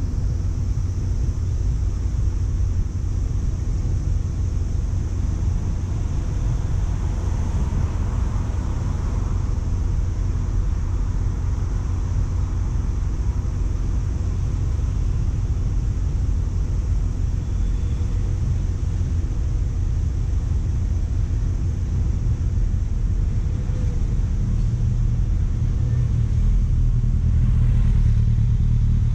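Steady low rumble of a car driving along a highway, engine and tyre noise, growing a little louder near the end.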